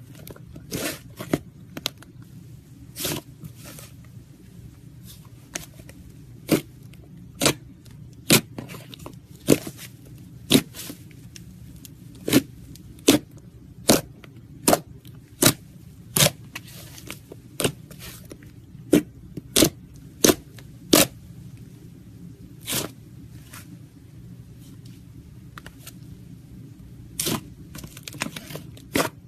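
Thick green slime squeezed and kneaded by hand, giving off sharp pops and clicks as trapped air bursts, at roughly one a second and thickest in the middle stretch.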